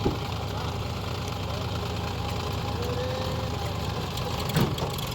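Heavy diesel engine idling with a steady low rumble, with two short sharp knocks, one at the very start and one about four and a half seconds in.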